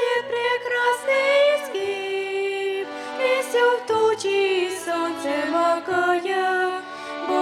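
Church ensemble music: a slow hymn melody with violin and voices.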